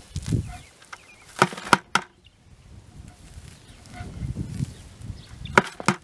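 A small hand fork digging and scraping through soil and mulch as weeds are pulled out. There are sharp knocks: three close together about a second and a half in, and two more near the end.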